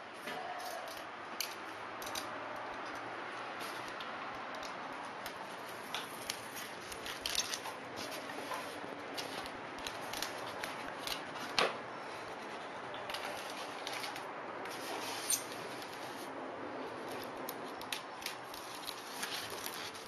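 Tape along the seam of a polystyrene foam box being cut and scraped with a small hand tool: scattered scratching clicks over a steady hiss, the sharpest click a little past halfway.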